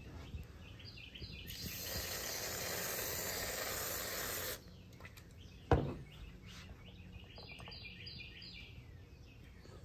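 Aerosol whipped-cream can spraying: a steady hiss of about three seconds that cuts off sharply, then a single knock. Birds chirp in the background.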